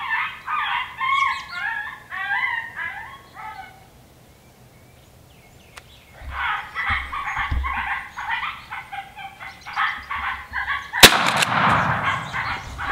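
A predator call plays rapid, warbling yelps, falls quiet for about two seconds midway, then resumes. Near the end a single shotgun blast, the loudest sound, rings out at an approaching coyote.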